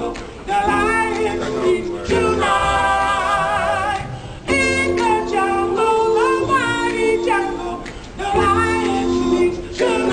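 A group of men singing a cappella in harmony, holding long chords in phrases with short breaks between them.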